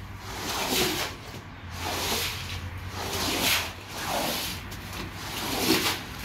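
Rubber floor squeegee pushed across a soaked rug, squeezing water out of the pile: about five wet swishing scrapes, roughly one a second.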